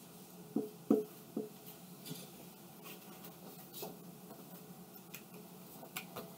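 Marker squeaking and tapping on a whiteboard while writing. There are three short squeaks about half a second to a second and a half in, then faint scattered ticks and clicks.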